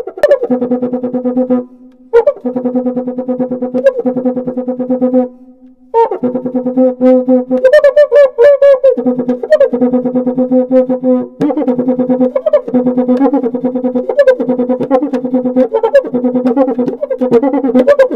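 Background music: a synthesizer tune of fast repeated notes, breaking off briefly twice early on.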